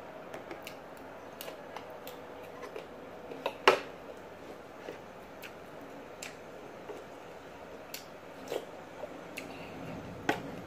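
Metal spoon and fork clicking and scraping against a plate while eating: scattered light clicks, with one sharper clink about a third of the way in and another near the end.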